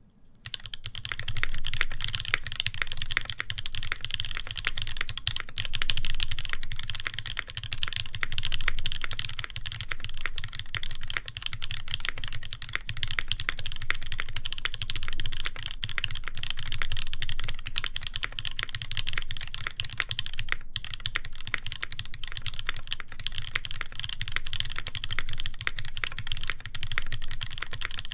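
Fast, continuous typing on an Iron180 mechanical keyboard with lubed Moss switches, a full brass plate and GMK keycaps: a dense run of keystroke clacks, with a brief pause about twenty seconds in.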